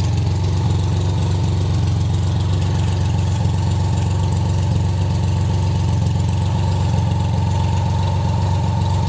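BMW café racer motorcycle engine idling steadily, with no revving.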